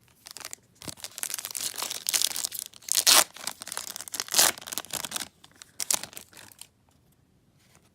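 Trading-card pack wrapper crinkling and tearing in irregular bursts, dying away about two-thirds of the way through.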